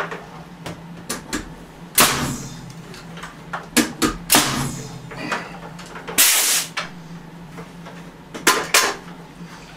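Pneumatic nail gun driving nails into wooden framing blocks: a string of sharp shots at irregular intervals, some in quick pairs, several followed by a short rush of air. A low steady hum runs underneath.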